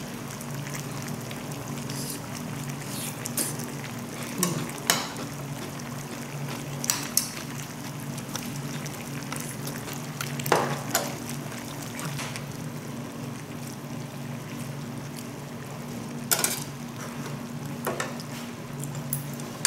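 A metal spoon scraping and clinking against a bowl, about half a dozen sharp clinks spread out, over a steady low hum and the soft bubbling of braised chicken stew simmering in a pot on a tabletop gas burner.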